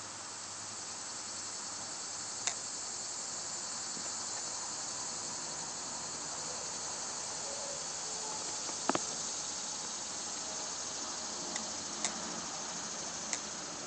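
Steady high-pitched insect chirring, with a few brief faint clicks scattered through it.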